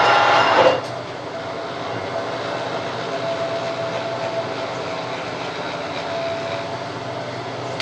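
Lathe turning and cutting a plastic piston stop, the cut ending abruptly under a second in. The machine then keeps running steadily without cutting.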